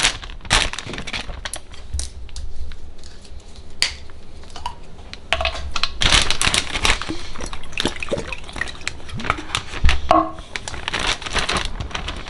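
Clear plastic zip-top bag crinkling and rustling in the hands as it is opened and filled with pieces of tuna, the crackling growing busier about halfway through.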